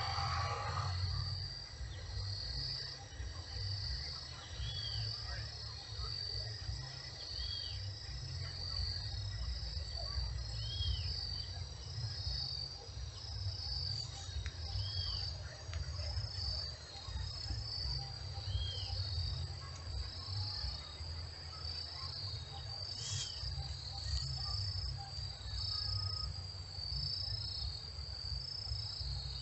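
Insects chirping in a steady, rapid pulsing rhythm, cricket-like, with a short high arched call repeating every three to four seconds, over a constant low rumble.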